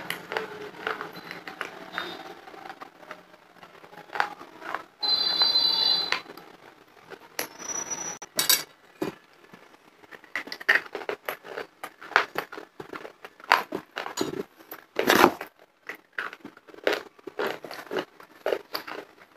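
Close-miked crunching and chewing of homemade lollipops of dried red clay and chalk: a quick, uneven run of sharp, crisp crunches. About five seconds in there is a harsh scraping noise lasting about a second.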